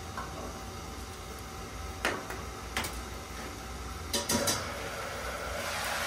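Sharp clinks of a metal pot and its lid, a few in all, about a second apart, then food frying in the pot with a hiss that swells over the last two seconds, above a steady low rumble.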